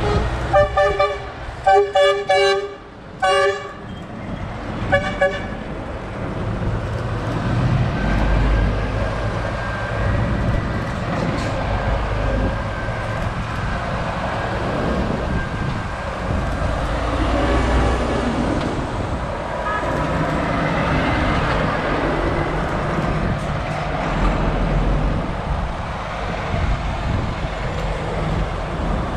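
Lorry horns tooting in a string of short blasts for the first five seconds or so. Then the steady running of big diesel tractor units as they drive past one after another, swelling each time a lorry goes by.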